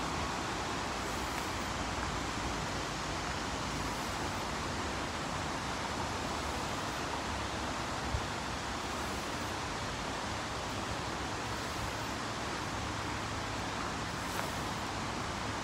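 Steady rush of white water in a creek below the trail, an even noise that does not change.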